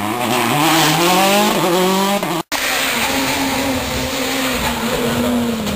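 Rally car engines at racing speed. First a car pulls away with a rising engine note and a gear change, then the sound cuts off abruptly. After that, a Peugeot 207 rally car's engine drones steadily on approach, its pitch dropping near the end as it slows for a hairpin.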